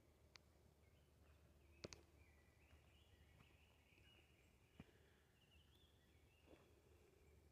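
Faint birdsong: thin, high notes from small birds, with a few sharp clicks, the loudest a double click about two seconds in.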